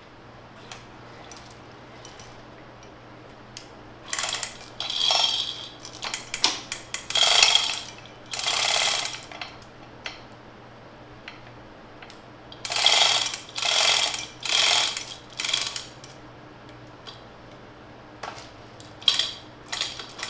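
Steel chain of a hand chain hoist rattling and clinking as it is hauled through the hoist by hand, in several pulls of one to three seconds each.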